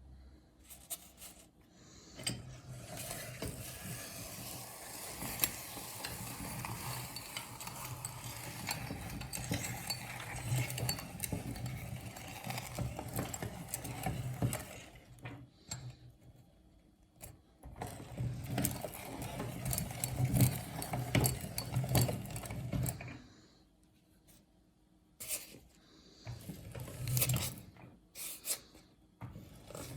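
Meat grinder running in three spells, the longest about twelve seconds, a steady hum under a dense crackle and clatter as hard candy lollipops are crushed.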